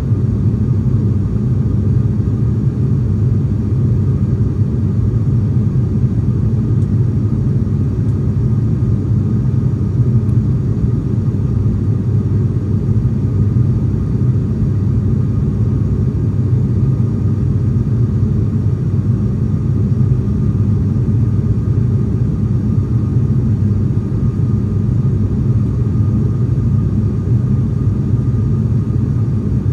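Steady low drone of an ATR 42's twin turboprop engines and propellers, heard inside the passenger cabin in flight, with a faint steady whine above it.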